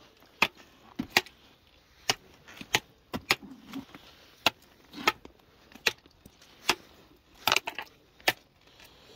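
A hand digging tool clinking and scraping against stones, gravel and shell grit on a tidal flat, in sharp irregular clicks about one or two a second, with a quick cluster of clicks near the end.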